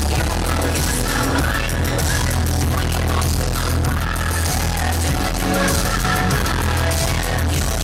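Loud electronic dance music with a heavy, steady bass.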